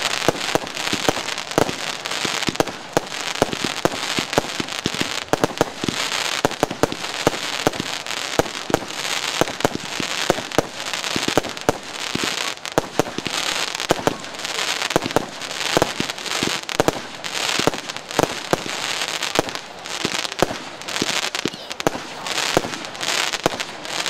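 Consumer fireworks cake firing shot after shot. Many sharp pops and bangs follow closely on one another, with a hiss between them.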